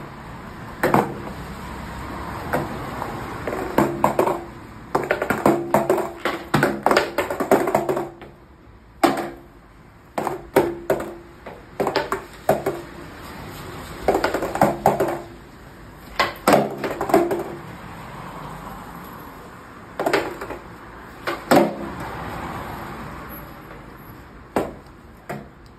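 Skateboard on concrete: a string of sharp wooden clacks and knocks as the tail is popped and the board lands. They come in bunches of several strikes with short pauses between, some with a brief ringing of the deck and wheels.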